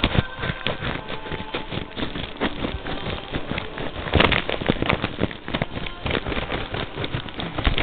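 Paper mailing envelope being cut open with scissors: crinkling paper and plastic lining with a string of short snips and crackles, loudest about four seconds in.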